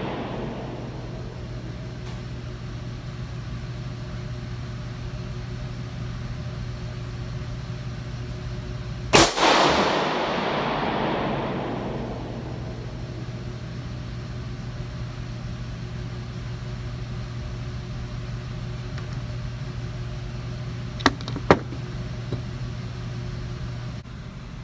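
A single shot from a Smith & Wesson .40 calibre semi-automatic pistol about nine seconds in, echoing for a couple of seconds off the walls of the indoor range, over a steady low hum. Two sharp clicks about half a second apart come later.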